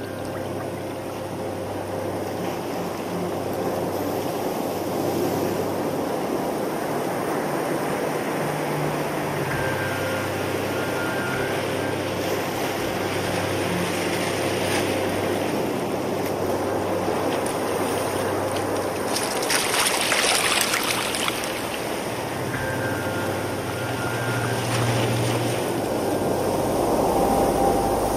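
Sea water washing and sloshing around rocks and seaweed in tidepools, with a louder surge of splashing about two-thirds of the way through. Under it, sustained low musical notes hold and shift pitch every several seconds.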